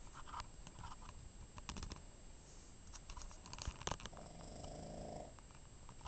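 Boston terrier snoring in its sleep: one snore about four seconds in, lasting about a second, with softer breathing and a few light clicks before it.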